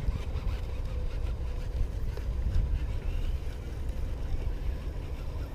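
Steady low rumble of wind on the microphone, with a baitcasting reel being cranked in faintly beneath it while a hooked bass is brought in.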